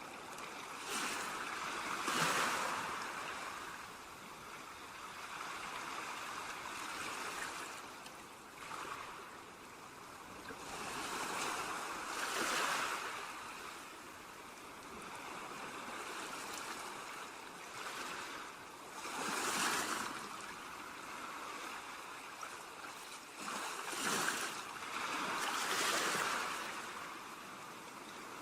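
Ocean waves breaking on a beach, five surges of surf over a steady wash, each swelling and then fading.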